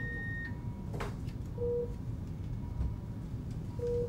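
Electronic beeps of hospital equipment: a short high beep at the start, then two short lower beeps about two seconds apart, over a faint steady tone and low room hum. There is a click about a second in.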